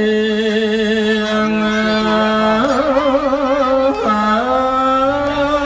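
Khmer smot: a Buddhist monk's solo chanted recitation, one voice holding long notes with wavering ornaments. After a short break about four seconds in, it steps up to a higher held note.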